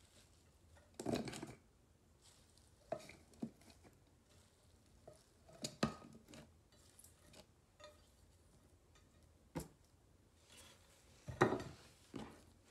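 Chopped vegetables being tipped and pushed off a plate into the glass bowl of a mini food chopper: scattered knocks and clinks of the plate and hands against the glass, with a louder clatter near the end.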